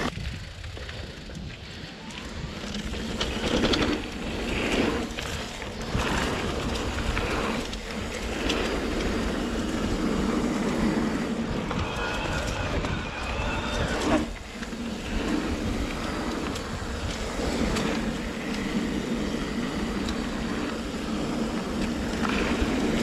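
Trek Rail 7 electric mountain bike riding down a dirt trail: wind rushing over a chest-mounted action camera's microphone and tyres rumbling over the ground, with the bike clattering at intervals over bumps, the sharpest knock a little past halfway.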